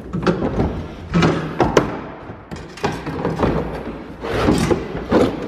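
Irregular knocks, thumps and scraping as a pickup's box liner is worked loose and shifted in the truck bed.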